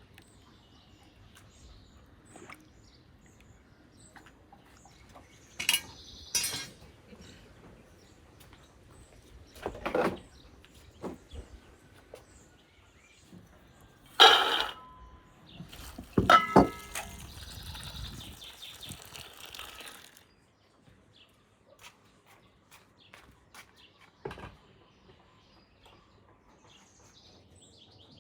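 Scattered knocks and clinks of cookware and utensils being handled, the loudest a ringing metallic clink about two thirds of the way in, followed by a few seconds of rushing noise.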